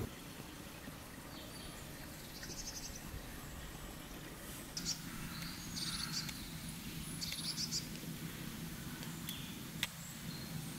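Birds chirping in short high calls and a brief trill, over a quiet outdoor background with a faint low hum from about halfway; one sharp click near the end.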